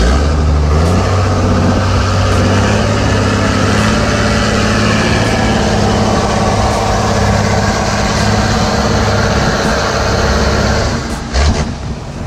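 A long-tail boat's engine running at speed, its pitch climbing about a second in as it throttles up and then holding steady, with the rush of wind and water alongside. The sound drops and changes abruptly near the end.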